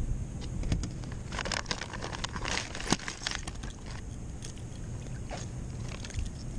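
Close handling noise: a run of crackling, crunching clicks from about a second in until a little past halfway, over a steady low rumble.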